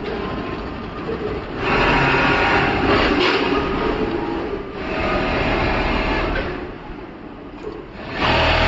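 TTY computerized pattern sewing machine stitching a templated workpiece, running in bursts of about two seconds with quieter pauses between. Runs start about two, five and eight seconds in.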